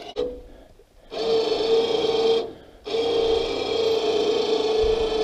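Harbor Freight 2,500 lb 12-volt electric winch on a pickup-mounted crane hoisting a log: a steady motor whine that starts about a second in, cuts out briefly at about two and a half seconds, then runs on.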